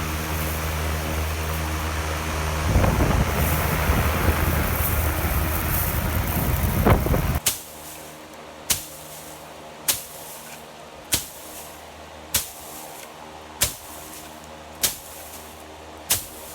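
A fan-type machine running with a steady hum and a rush of air. It cuts off abruptly about seven seconds in, leaving a faint hum and sharp single knocks at an even pace, about one every 1.2 seconds.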